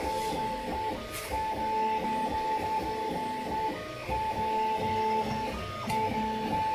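A 3D printer's stepper motors whining in steady tones that break off and change pitch as the print head moves and turns corners, printing a thin-walled part fast enough that the E3D V6 hotend is starting to underextrude.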